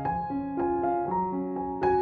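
Background music: a piano-like keyboard playing a melody of struck, fading notes, about three a second, over lower held bass notes.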